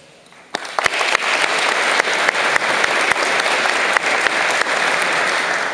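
Audience applauding, starting suddenly about half a second in and dying away near the end.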